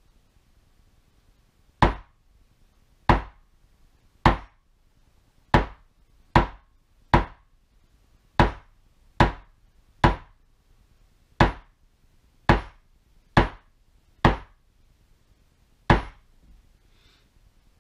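Mallet striking a small metal leather stamp held on damp leather: about fourteen sharp taps at an uneven pace of roughly one a second, backgrounding around stamped letters.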